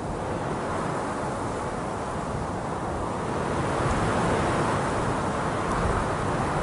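Wind blowing as a steady rushing noise, swelling a little about four seconds in.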